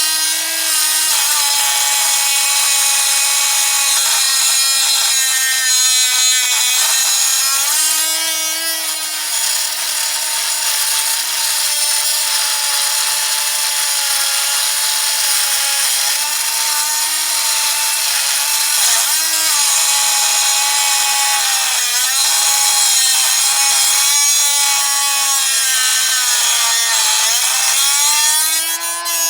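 Dremel rotary tool with a cutting wheel grinding into a steel padlock: a steady high whine over a harsh grinding, its pitch sagging briefly several times as the wheel bogs under pressure, then picking up again.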